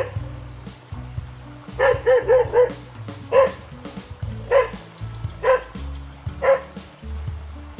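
A dog barking repeatedly: a quick run of four barks, then single barks about once a second, over background music with a steady low beat.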